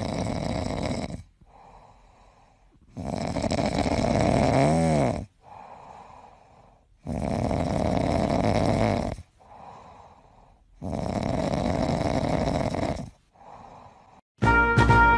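Domestic cat purring loudly close to the microphone while being petted, swelling into four long loud stretches of about two seconds each with quieter purring between, in a slow in-and-out breathing rhythm.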